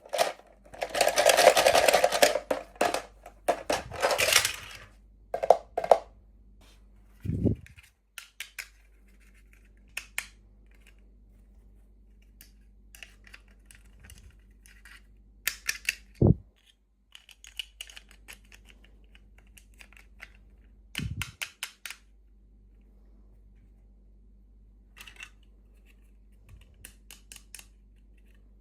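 Plastic packaging and small plastic toy pieces being handled: a few seconds of crinkling near the start, then scattered clicks and taps and three soft knocks of pieces being set down.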